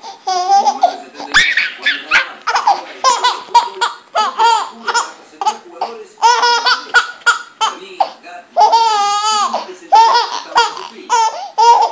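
Baby laughing hard in many short bursts of belly laughter, with one longer, wavering squeal of laughter about nine seconds in.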